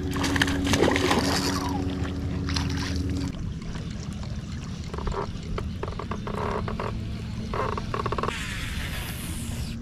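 A boat's electric trolling motor hums steadily, then is switched off about three seconds in. Under it is a low rumble of wind on the microphone, with scattered clatter and rustling from handling in the boat and a brief hiss near the end.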